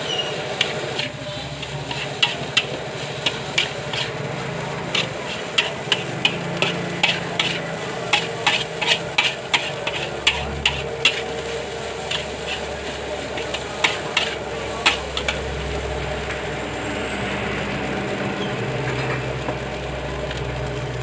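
Fried rice being stir-fried in a wok: a metal spatula clanks and scrapes against the pan in quick irregular runs over steady sizzling. The clanks stop about three-quarters of the way through, leaving the sizzle.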